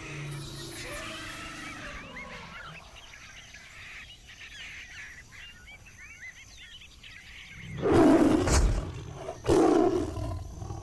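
Basketball shoes squeaking on a sports-hall floor over the hall's background din, with short high squeals curling up and down. Near the end come two loud, rough bursts about a second and a half apart.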